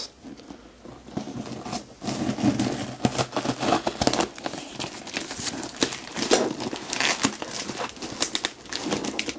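Cardboard box flaps and packing tape being pulled and torn open by hand: irregular crinkling and tearing, quieter at first and busier from about two seconds in.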